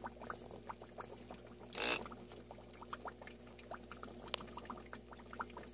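Small saltwater aquarium: water trickling and bubbling in irregular small ticks over a steady low hum, with one short rush of noise about two seconds in.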